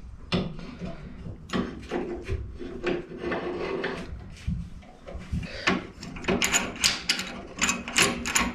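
Steel G-clamps being fitted over a steel plate at a workbench edge and screwed tight: a run of metal clicks, knocks and scrapes, becoming quicker and sharper in the second half.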